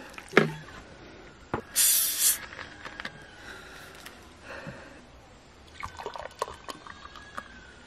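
A knock just after the start, then the cap of a plastic soda bottle twisted open with a short sharp hiss of escaping gas about two seconds in. Near the end, fizzy soda is poured into a glass, with small clinks and splashes.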